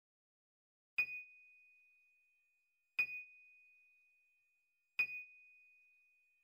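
A bell-like chime struck three times, about two seconds apart, each time the same single high note ringing and slowly fading.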